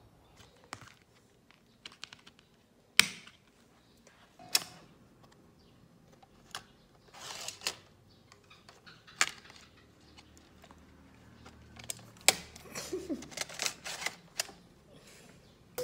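Clicks and taps of a DVD being handled and set into the tray of an external disc drive, with a short rustle about halfway through and a quick run of clicks near the end as the tray is pushed shut.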